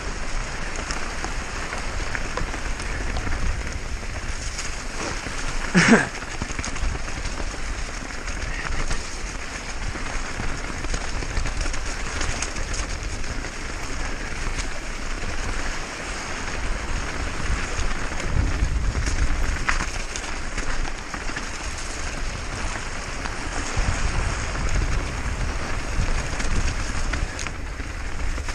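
Mountain bike riding fast down a muddy trail: a steady rush of tyre, mud-spray and wind noise with constant small clicks and rattles from the bike. About six seconds in comes one short rising cry or squeal.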